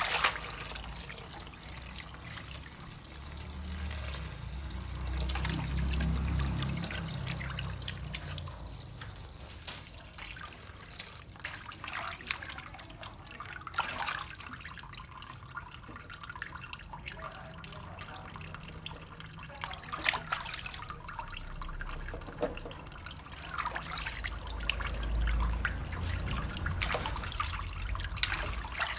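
Tap water running into a stainless steel sink and splashing over vegetables as they are rinsed by hand, with frequent short splashes and knocks as the produce is handled.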